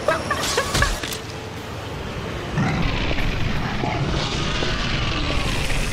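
Action sound effects from an animated film: a few sharp clanks in the first second, then from about two and a half seconds in a steady, heavy mechanical rumble.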